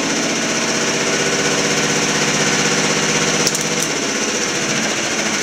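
Crown TSP 72-volt DC electric motor spinning a Honda CR-V transmission on a 12-volt battery, a steady motor hum with gear noise and a slight vibration, which the builder puts down to the adapter plate not yet being perfectly aligned. A brief click comes about three and a half seconds in, after which the tone shifts a little.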